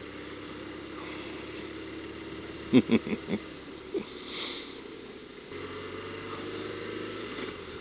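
BMW R1200RT's boxer-twin engine running steadily as the motorcycle rolls along at town speed. The engine note steps up slightly about five and a half seconds in.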